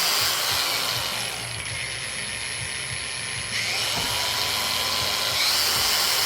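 Arccaptain 20V cordless brushless variable-speed angle grinder running. Its sound drops about a second and a half in and comes back up around four seconds.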